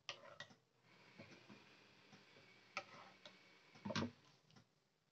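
Steel ladle clicking against a pan while thick gravy is ladled out: scattered light clicks, one sharp click near the three-second mark and a louder knock about a second later.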